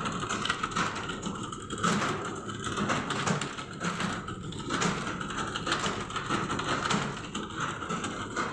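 Computer keyboard being typed on: a quick, irregular stream of key clicks.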